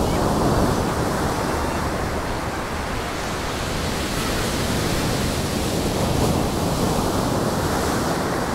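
Rough sea surf breaking and washing up a sandy beach: a steady rushing noise that swells a little about half a second in and again around six seconds.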